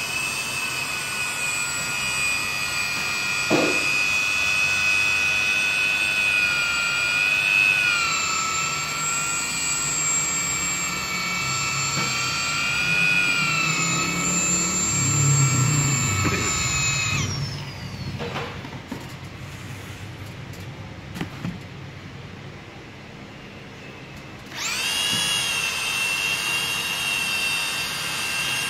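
Handheld electric polisher with a felt pad, spinning on glass to polish out stains and scratches: a steady high motor whine whose pitch sags slightly at times. More than halfway through it is switched off and winds down, and a few seconds before the end it starts again, quickly spinning back up to speed.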